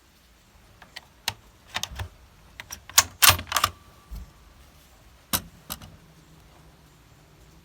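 An SKS rifle being handled: a series of sharp metallic clicks and clacks, most of them packed together about three seconds in, with two more a couple of seconds later.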